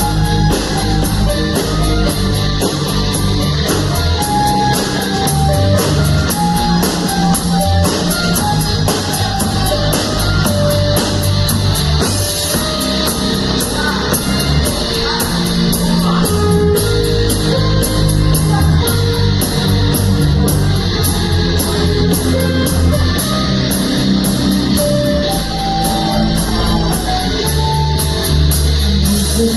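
Rock music without words: guitar over drums with a steady cymbal beat.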